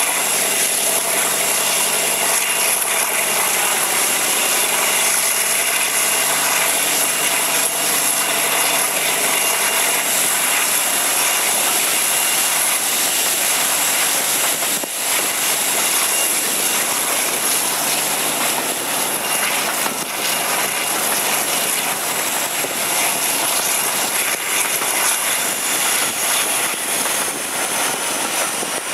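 Class 52 'Western' diesel-hydraulic locomotive D1010 under power, its twin Maybach V12 engines running with a loud steady drone and a high whine, heard from a carriage window behind it with wind and wheel noise. The sound eases a little about halfway through.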